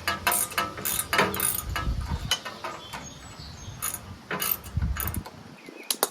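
Ratchet wrench clicking in irregular short bursts as a spark plug that is really hard to remove is worked out of a lawn tractor engine's cylinder head.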